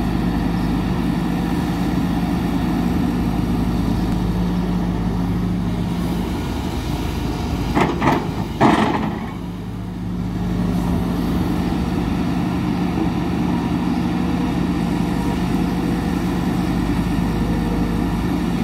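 Hidromek 230LC crawler excavator's diesel engine running steadily as the machine digs. For a few seconds in the middle the engine note drops, and about eight seconds in there is a short cluster of loud knocks.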